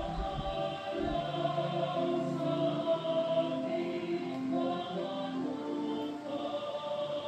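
A choir singing slow, held chords, hymn-like music.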